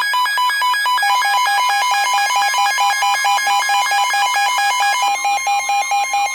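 A NOAA weather radio receiver's alert alarm beeping rapidly, about eight electronic beeps a second in a repeating two-pitch pattern that shifts about a second in. A steady tone joins around five seconds in. It signals that a new warning is being broadcast.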